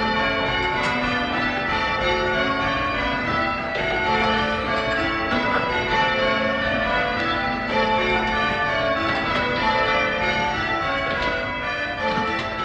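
A ring of six Gillett and Johnston church bells, tenor in A, ringing changes: a continuous, even succession of bell strokes whose notes overlap and ring on, growing quieter near the end.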